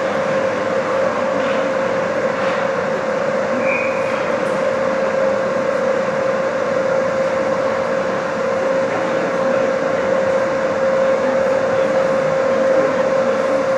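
Steady hum of a fan or ventilation unit, with a constant droning tone. About four seconds in, a short, faint whistle: the referee stopping play.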